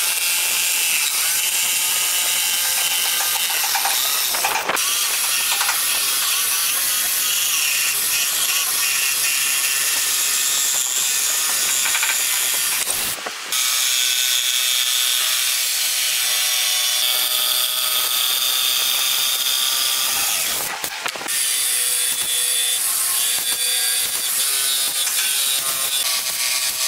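Bosch jigsaw cutting a curve through a thick pine board: a steady high motor whine over the rasp of the reciprocating blade, stopping briefly three times.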